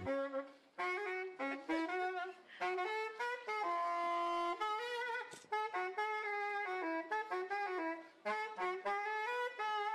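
Clarinet playing a slow solo melody: short phrases of single notes with brief breaths between them, and one long held note in the middle.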